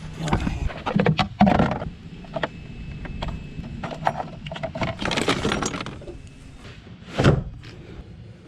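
Metal clinks, rattles and knocks of hand tools on a car battery's terminals and hold-down as the battery is taken out, with one heavier thump about seven seconds in.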